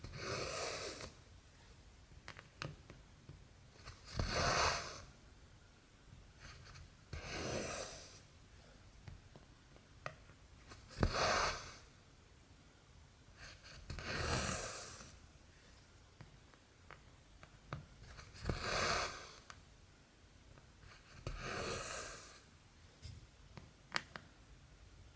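Cotton thread being drawn through cross-stitch fabric, a soft swish about a second long repeated seven times, every three to four seconds. Faint sharp clicks between the pulls.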